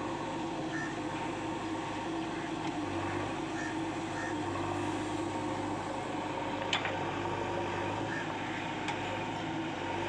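JCB 3DX backhoe loader's diesel engine running at a steady speed, a constant hum while the backhoe arm is worked.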